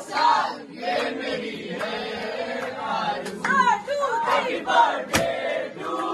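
A group of people chanting and shouting together, many voices overlapping, with one sharp snap about five seconds in.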